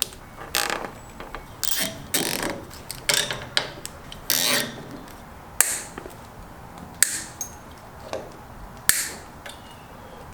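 Ratchet wrench clicking in short back-and-forth strokes, roughly one a second, irregularly spaced, as bolts are tightened a little at a time.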